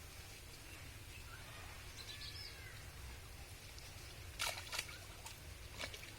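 Quiet rural outdoor ambience with a few faint bird chirps, and two short sharp knocks or splashes close together about four and a half seconds in.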